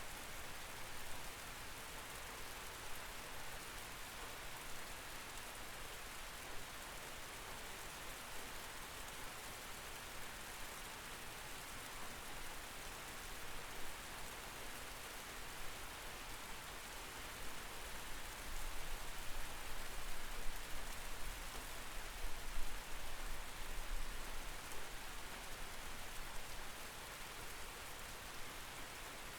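Steady rain falling, heard through a window, an even hiss with scattered drop patter. A low rumble swells for several seconds past the middle, with a few louder drops, then eases off.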